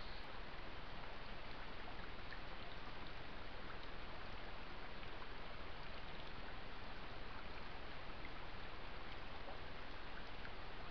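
Steady rush of a shallow creek flowing past the camera, heard through a trail camera's hissy microphone, with a few faint ticks.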